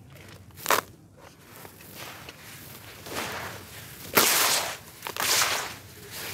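Hands crumbling and squeezing dry, gritty red dirt in a bowl, with a crunchy, crumbling sound. A short sharp crunch comes just under a second in, and handfuls of crumbs pour back down in longer, louder crunching stretches around four and five seconds in.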